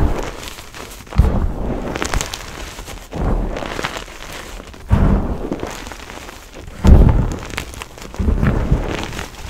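Hands squeezing and pressing into a heap of crushed gym chalk powder, five deep, muffled crunching squishes a second or two apart, the loudest about two-thirds of the way in.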